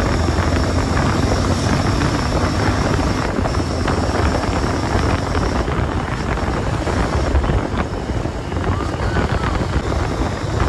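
Motorcycle riding: steady wind rush buffeting the microphone over the bike's engine and road noise.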